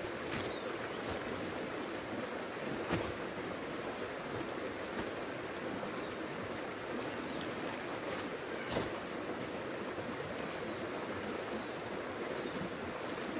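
Steady rush of a flowing river, with a few sharp clicks now and then.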